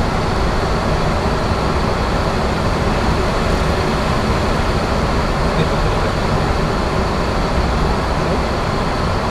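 Boeing 737-800 flight-deck noise in flight: a steady, even rush of airflow and engine sound with a faint steady high whine.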